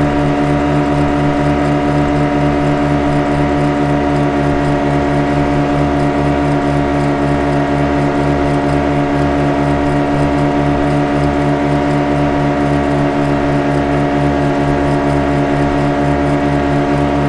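Boat engine running at a steady speed: a constant hum with a regular low throb and no change in pitch or loudness.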